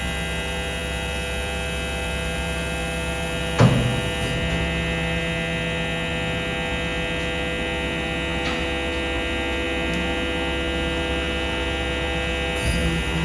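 Steady electric hum of the BYD garbage truck's compactor machinery running, made of several steady tones, with one sharp clunk about four seconds in.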